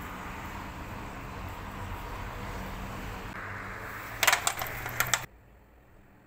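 Steady outdoor street background noise with a faint low hum. About four seconds in comes a quick cluster of sharp clicks and taps, then the sound cuts off suddenly to a much quieter hush.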